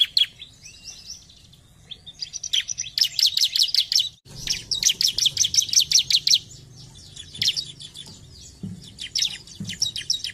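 Bar-winged prinia (ciblek) singing: rapid runs of sharp, high repeated notes, in bursts of one to two seconds with short pauses between them.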